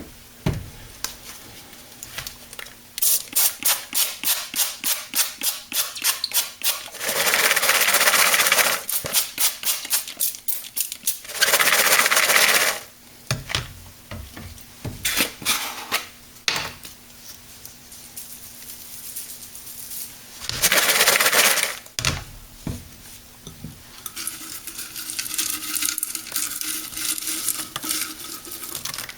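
A topping being shaken onto a bowl of popcorn: runs of rapid rhythmic shaking taps, about four or five a second, broken by three hissing bursts of one to two seconds each.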